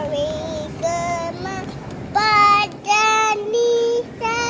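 A young girl singing a string of short held notes, each kept on a steady pitch, louder from about two seconds in.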